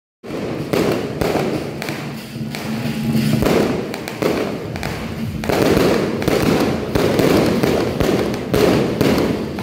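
A string of firecrackers going off, a rapid, irregular run of sharp bangs and pops.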